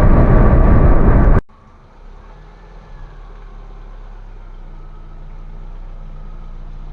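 Loud driving noise inside a VAZ 2110 running in fifth gear, cut off abruptly about a second and a half in. A much quieter, steady low hum of the car's engine idling follows.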